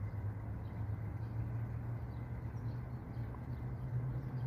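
Steady low rumble of distant road traffic, with a few faint, short bird chirps over it.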